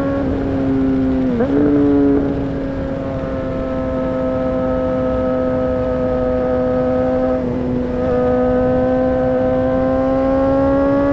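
2008 Honda CBR600RR's inline-four engine running at high revs under way, a steady note with wind rush. It breaks off briefly about a second and a half in and again about seven and a half seconds in, then climbs slowly near the end.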